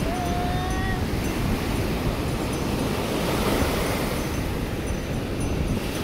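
Steady rush of shallow surf washing up a sandy beach, with wind buffeting the microphone. A brief high pitched sound, like a short call, sits in the first second.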